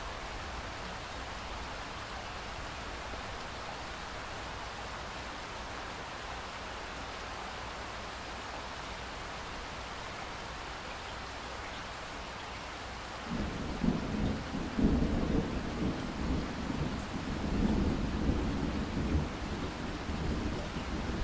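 Steady rain hiss. About two-thirds of the way through, a low rolling thunder rumble comes in suddenly and keeps going, swelling and fading unevenly.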